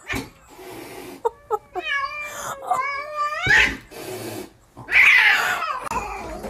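Domestic cat at a window yowling: a long, wavering drawn-out call that rises toward its end, then a louder, harsher cry about five seconds in.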